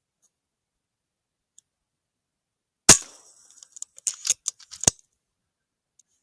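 A single sharp shot from an FX .22 pre-charged pneumatic air rifle (32 ft-lb FAC) about three seconds in. About a second later comes a quick run of clicks and rattles, ending in one more sharp click.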